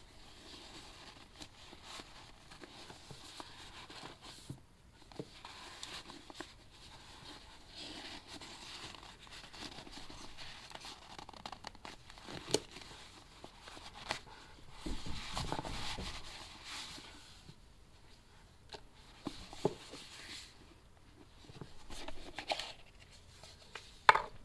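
Satin ribbon rustling and sliding as gloved hands untie it from a small cardboard gift box, then the box being opened, with light clicks and scrapes of cardboard. A sharp tap comes just before the end.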